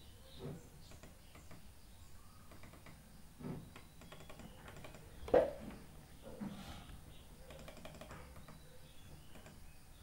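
Faint, scattered computer keyboard and mouse clicks, with a louder knock about halfway through.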